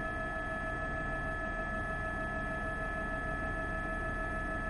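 Steady helicopter cabin noise: a constant whine of several held tones over a low rumble, unchanging throughout.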